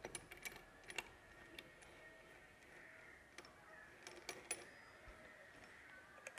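Faint metallic clicks and clinks of steel gearbox gears and shafts being seated into a Bajaj Discover motorcycle crankcase half by hand. The ticks are scattered and soft, with a sharper one about a second in and two close together a little past four seconds.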